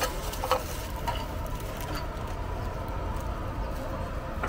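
Open-air street-stall ambience: a steady low rumble of background traffic, with a few brief clicks and the rustle of plastic takeaway bags being handled about half a second and a second in.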